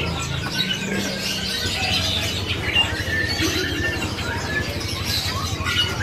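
Many caged songbirds chirping and whistling at once, a busy mix of short overlapping calls.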